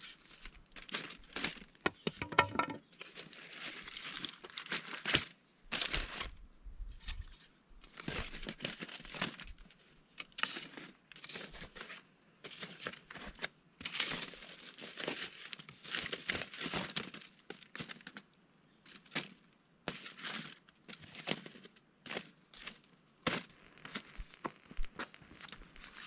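Aluminium foil packet crinkling and rustling in irregular bursts as it is prodded and shifted with a stick on campfire coals, with scattered sharp clicks.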